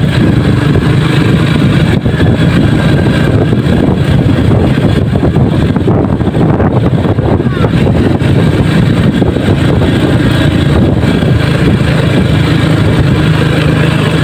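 Sport motorcycle engine running steadily at low speed while riding over a rough, rocky dirt road, with road noise.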